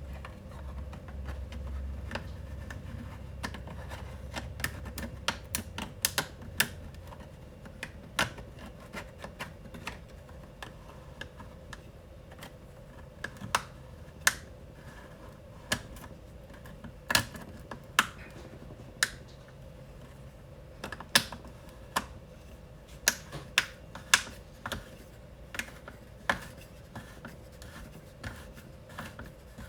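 Irregular sharp clicks and taps of hard parts being handled while a 3D-printed nut is worked onto its thread, with a low rumble in the first few seconds.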